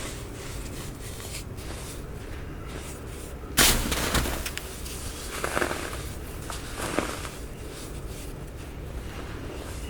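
Compressed baking soda being crushed, with one sharp, loud crunch a little over a third of the way in and two softer crunches later.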